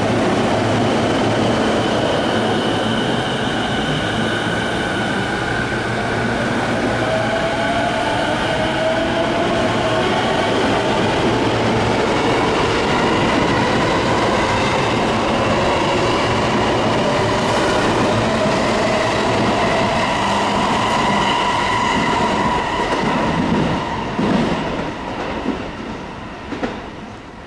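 Sotetsu Line electric train running along the station track: a loud, steady rumble of wheels on rail with a whine that shifts slightly in pitch, fading away over the last few seconds.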